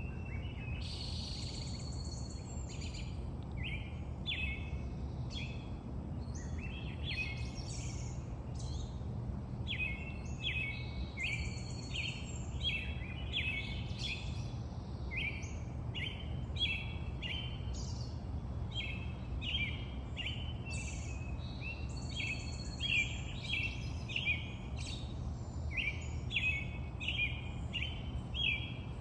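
Wild birds chirping and calling, with many short notes repeated in quick runs throughout, over a steady low background rumble.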